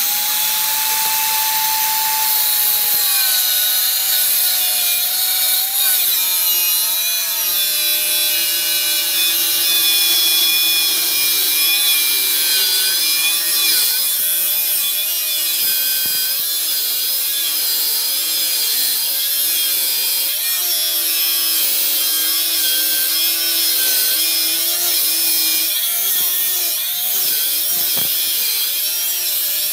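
Angle grinder with an abrasive cut-off disc, mounted in a sliding chop stand, cutting through a metal tube. Its motor whines at a steady pitch at first, then drops in pitch about three seconds in as the disc bites, wavering with the load over a harsh grinding hiss as the cut goes on.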